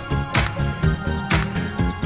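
Background music with a steady beat over a bass line, a sharp hit landing about once a second.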